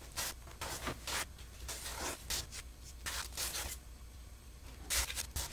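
A plastic spreader mixing and smearing body filler and hardener on cardboard: a quick, irregular series of short scraping strokes, with a louder scrape near the end.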